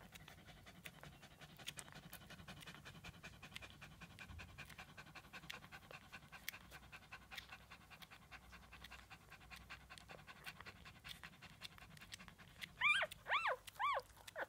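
Day-old Shih Tzu puppies nursing: many small wet suckling clicks over steady panting. Near the end a puppy gives three or four short, loud, high squeals that rise and fall in pitch.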